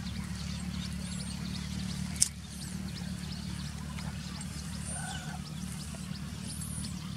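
Small birds chirping in short, high calls over a steady low rumble, with one sharp click about two seconds in.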